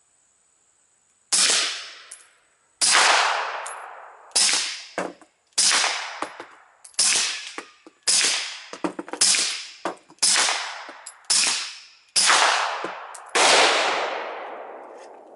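Suppressed 9mm Glock 19 pistol with a SilencerCo Octane 45 suppressor firing about eleven shots at a steady pace, each followed by a long fading echo. The string alternates subsonic 147-grain and supersonic 115-grain rounds, and the supersonic ones carry an audible bullet crack. Lighter clicks sound between some shots.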